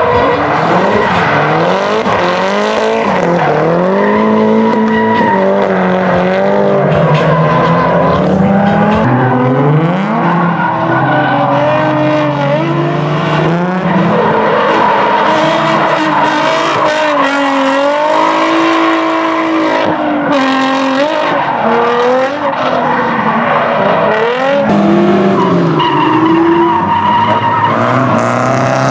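Drift cars sliding through corners: engines revving up and down as the throttle is worked, at times two cars at once, with tyres squealing and hissing as they slide.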